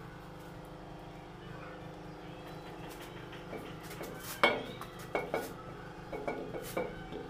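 Ceramic wall-hung toilet bowl knocking and clinking as it is set down on the floor and shifted against the wall and its waste pipe. A sharp knock comes about four and a half seconds in, followed by several lighter knocks.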